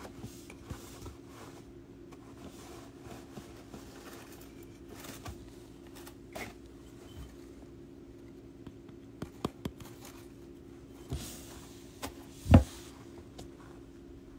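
Djungarian hamster rustling and scratching about in wood-shaving and shredded-paper bedding: faint scattered ticks and scrapes over a steady low hum. A quick run of three sharp clicks comes about nine seconds in, and a loud thump, the loudest sound, comes about twelve and a half seconds in.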